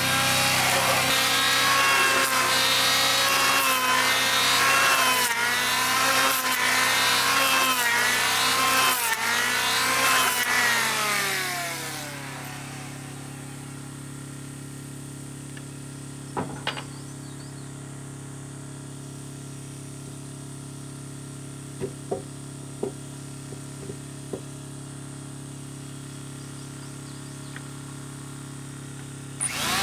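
Electric hand planer shaving a wooden beam, its motor whine dipping and recovering as it bites the wood, then spinning down about eleven seconds in. A steady low machine hum remains, with a few knocks of the timber being handled, and the planer starts up again right at the end.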